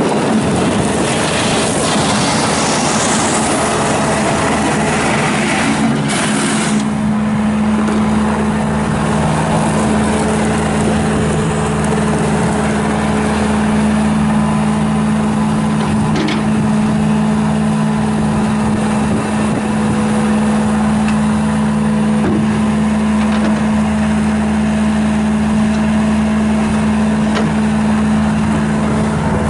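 2011 Bobcat S650 skid steer loader's 74 hp Kubota diesel engine running at a steady speed. A high hiss over it rises in pitch in the first few seconds and stops about seven seconds in.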